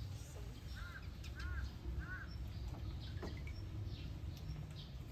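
Three short arched bird calls, about half a second apart, with fainter high chirps around them, over a steady low outdoor rumble.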